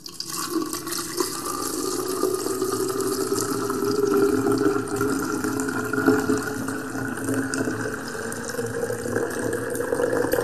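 Steady rushing sound like running water, going on without a break.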